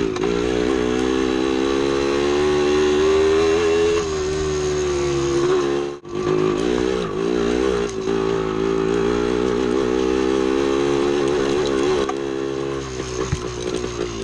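1975 Yamaha DT250B's air-cooled two-stroke single-cylinder engine running under load while the bike is ridden along a dirt trail, its pitch rising and falling with the throttle. The sound drops out abruptly for a moment about six seconds in, then carries on.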